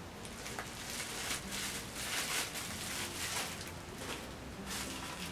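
Packaging wrap rustling and crinkling as a plastic model horse is handled and unwrapped, in uneven bursts with a few small clicks.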